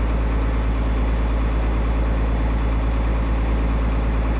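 Boat engine running steadily, a low, even drone.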